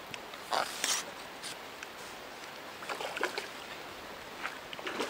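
A small river flowing steadily, with a few short rustles and knocks of handling about a second in and again around three seconds.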